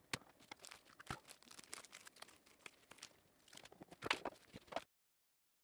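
Faint handling noises: scissors snipping a plastic packet and plastic clicks and rustles as filament spools are handled, with a short run of louder plastic clacks about four seconds in. The sound cuts off abruptly to silence near the end.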